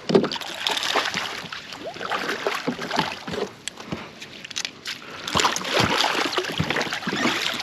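Water splashing and sloshing, with scattered knocks against a boat, as a hooked smallmouth bass is played at the boatside.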